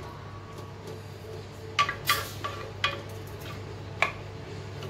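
A spoon stirring thick chicken curry in a cooking pot. There are a few short knocks and scrapes of the spoon against the pot, mostly around two seconds in and once near the end, over a low steady hum.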